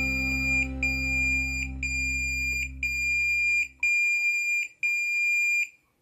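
Intrusion alarm beeping from the alarm touch panel: a high electronic tone repeating about once a second, each beep nearly a second long, that stops near the end as the alert is cleared. A low sustained background-music chord runs underneath and cuts off about four seconds in.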